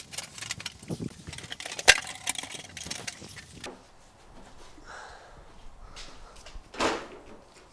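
Clicks, clatter and knocks as a fiberglass bumper is handled and pressed into place on the front of a car, with a sharp click about two seconds in. It goes quieter after the first few seconds, then one louder knock comes near the end.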